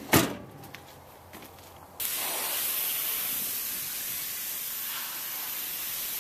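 A single thump just after the start, then from about two seconds in the steady hiss of a pressure washer's spray wand jetting water onto wooden deck boards.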